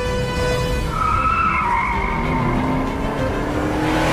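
Car tyres squealing in a skid, a wavering high squeal for about a second, over a tense orchestral film score.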